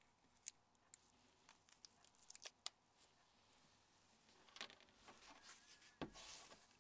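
Very faint small clicks of plastic phone parts being handled, followed a few seconds in by light scraping and rustling, as a Nokia 5610's slider module is pulled to free its clip.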